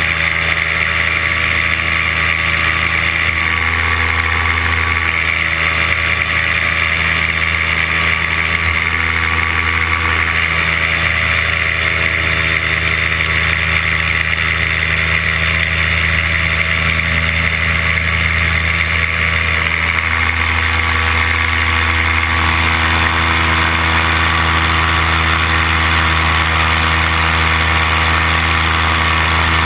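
A paramotor's engine and propeller running steadily in flight, with a slight shift in its note about two-thirds of the way through.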